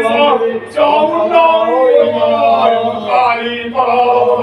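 A male priest chanting puja mantras in a sing-song voice into a microphone, heard through a loudspeaker.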